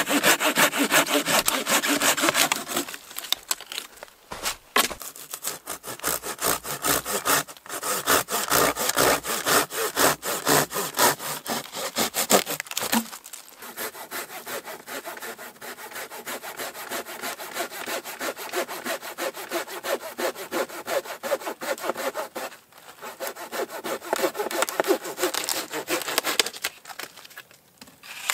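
Small folding pruning saw cutting through dry dead branches of a standing dead tree, quick back-and-forth strokes. The cutting comes in several bouts with brief pauses and stops near the end.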